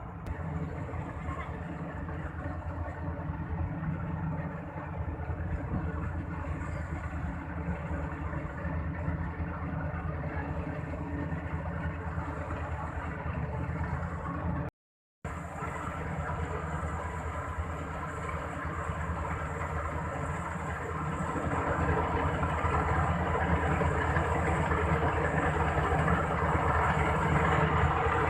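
Rice combine harvester running, its engine and threshing machinery giving a steady drone with a broad rushing noise. It cuts out completely for a moment about halfway through and grows louder over the last few seconds.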